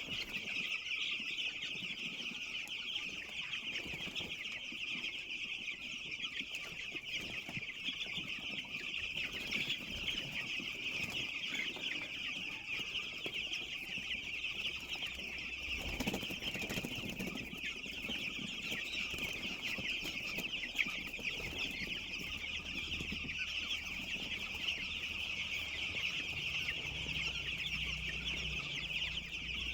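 A flock of young chicks peeping continuously, many high chirps overlapping. A single low thud comes about halfway through.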